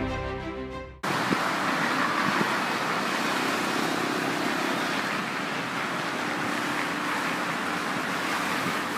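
Orchestral music fading out over the first second, then a sudden cut to steady road traffic: cars driving past with a constant tyre and engine hiss.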